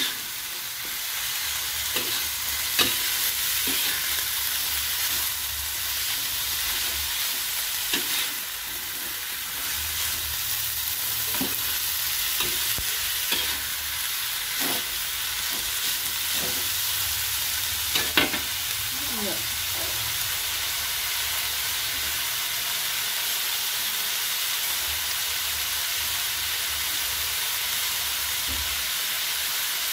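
Shredded mackerel tuna and chillies sizzling steadily in a wok as a metal spatula stirs and scrapes through it, with a few sharp knocks of the spatula against the pan, the loudest about eighteen seconds in. The last of the added water is cooking off as the mixture fries dry.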